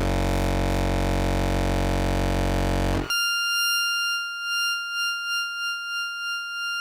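Experimental electronic music: a dense, buzzing synthesizer drone that cuts off abruptly about three seconds in, giving way to a thin, high whistling tone that wavers in loudness.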